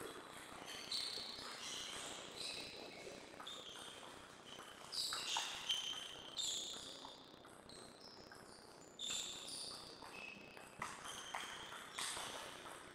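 Sports shoes squeaking on a sports floor: many short high-pitched squeaks overlapping in flurries, with a few sharp knocks among them.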